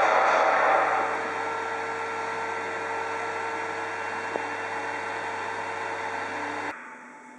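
Steady machine hum with a hiss over it, louder for the first second and then even, cutting off suddenly near the end.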